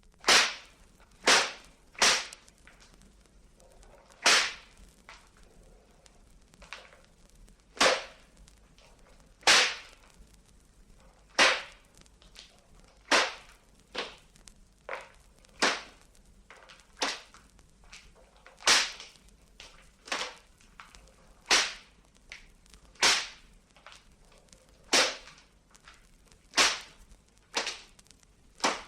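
A whip lashing again and again, sharp cracks at an uneven pace about a second or so apart, some strokes fainter than others: a whipping sound effect.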